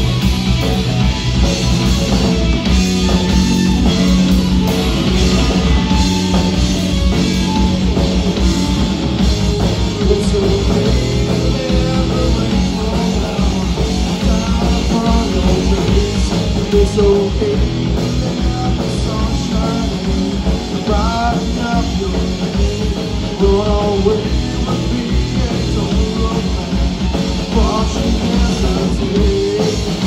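Live rock band playing loud and steady: electric guitar, bass guitar and drum kit. About halfway through, a man's voice sings over the band.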